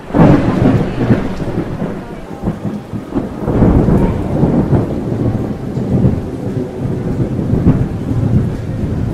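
Heavy rain falling with rolling thunder, starting suddenly and swelling and easing several times.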